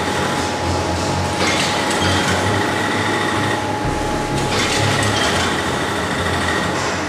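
Automatic vertical form-fill-seal packaging machine with an auger powder filler running: a steady whine under a mechanical cycle that repeats about every three seconds.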